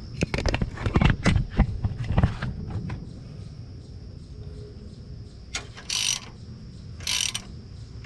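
Metal clicks and knocks from a gear puller being worked on the crankshaft timing gear for the first couple of seconds. Near the end come two short strokes of ratchet clicking, about a second apart, as the puller screw is turned slowly.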